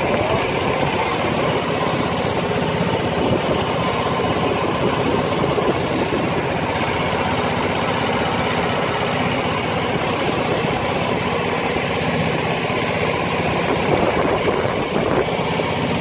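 Small tour boat's engine running steadily as the boat moves across the lake, an even unbroken drone.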